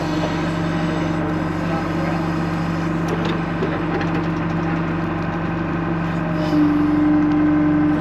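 John Deere 310 backhoe engine running steadily while digging. A louder steady whine joins about six and a half seconds in and holds to the end.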